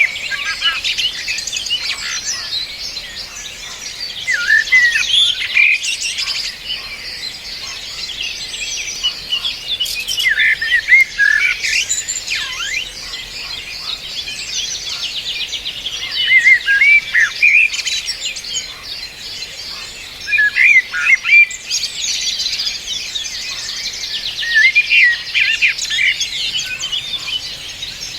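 Several songbirds singing together: a dense chorus of quick high chirps and fast trills, with no let-up.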